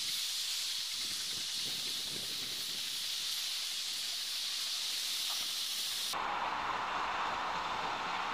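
Steady high hiss of steam venting from a steam locomotive. About six seconds in it cuts off abruptly to a duller, lower rushing noise.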